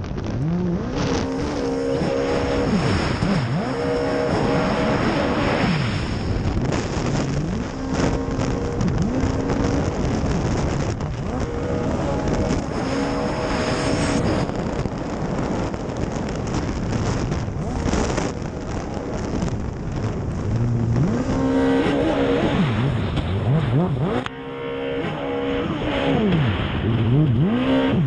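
Racing jet ski engine at high revs. Its pitch holds steady for a few seconds at a time, then dips and climbs again several times as the throttle is eased and reopened, over the rush of water spray.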